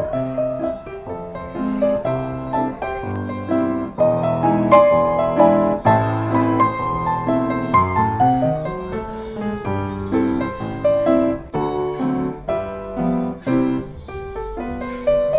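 Background music: a ragtime piece played on solo piano, with a steady bass line under a melody.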